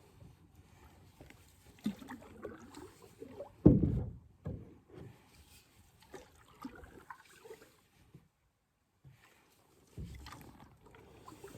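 Water sloshing and knocks around a canoe, with irregular bursts and one loud thump about four seconds in; a brief near-silent gap comes later.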